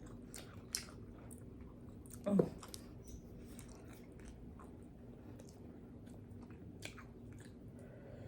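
A person chewing food close to the microphone, with faint wet smacking and mouth clicks, and a short voiced sound about two seconds in.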